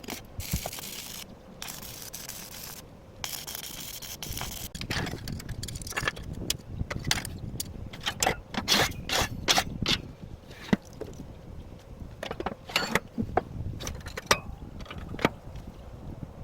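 Steel parts being worked by hand: two scraping passes, then a quick irregular run of sharp metallic knocks and clinks.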